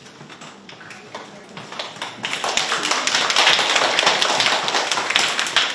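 Audience applauding: a few scattered claps that swell into full applause about two seconds in and die away near the end.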